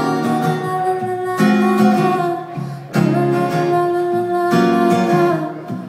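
Acoustic guitar strumming chords under a woman singing, with a long held note through the second half.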